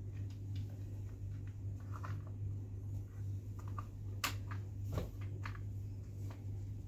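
Scattered small clicks and taps from handling the plastic hinge cover and a hex key on a Cougar Armor One X gaming chair during assembly, the sharpest about 4 and 5 seconds in, over a steady low hum.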